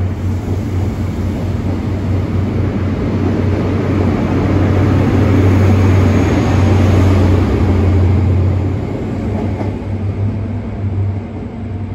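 GWR Castle Class HST (Class 43 power cars hauling Mk3 coaches) running past, a steady low diesel engine drone over the rumble of the coaches on the rails. It grows louder to a peak about halfway through, then fades as the rear power car draws away.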